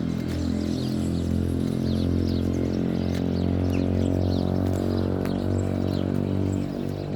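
Small birds chirping in short, quick notes over a steady low mechanical hum that is louder than the birds and drops away near the end.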